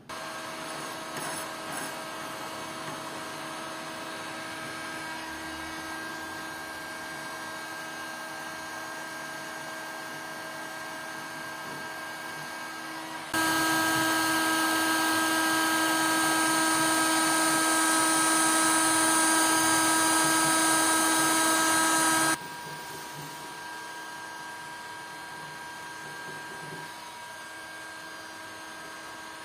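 Small electric power tool motor running with a steady hum, starting at the outset. About 13 seconds in it becomes much louder and hissier for roughly nine seconds, then drops back to the lower level.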